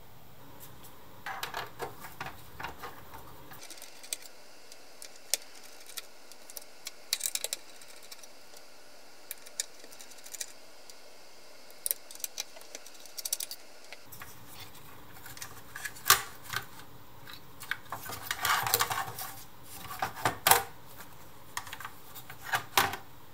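Scattered small clicks, taps and light rattles of a computer motherboard and its parts being handled in a sheet-metal server chassis as the board is freed and lifted out. Sparse at first, more frequent in the second half.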